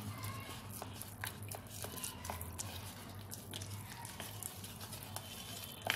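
Wooden spatula stirring a thick, wet cake batter of crushed biscuits and milk in a plastic bowl: irregular soft wet clicks and squelches as the spatula works the mix and knocks the bowl.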